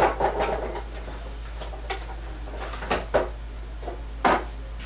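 Several short knocks and clatters of kitchen things being handled, such as a drawer, cupboard or cookware, over a steady low hum.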